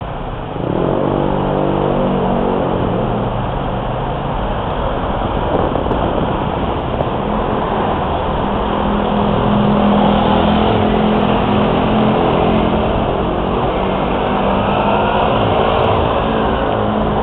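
City street traffic heard from inside an open-top convertible on the move: car engines running and speeding up over steady road noise.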